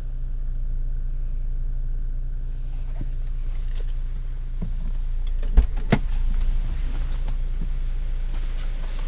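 2017 Jeep Cherokee Trailhawk engine idling, a steady low hum heard from inside the cabin. A sharp thump and a couple of clicks come a little past halfway.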